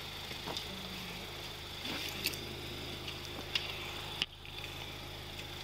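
A car engine idling with a steady low hum, with scattered light clicks and rustles of handling. There is a sharp click about four seconds in.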